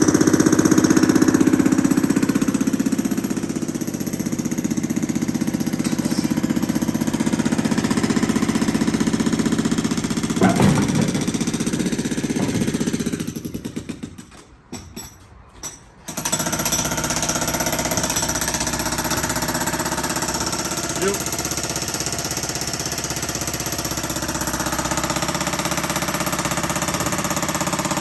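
Jackhammer breaking up concrete with fast, steady blows. It stutters and stops about halfway through, then starts again about two seconds later.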